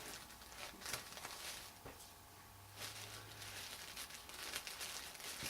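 Faint rustling and crinkling of paper wrapping as a small gift parcel is handled and opened, with a few soft clicks.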